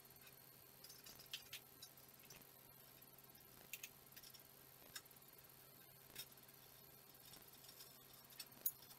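Faint, scattered clicks and taps of small metal parts (a bolt, nut and steel rod) being handled and fitted by hand into a go-kart's steering linkage, the sharpest click near the end.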